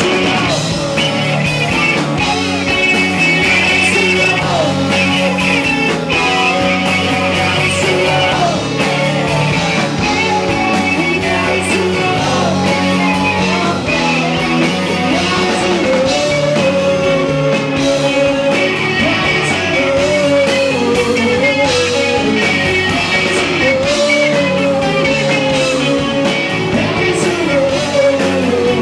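Live rock band playing loudly and without a break: a wavering sung or lead melody over electric guitar, with drum hits throughout.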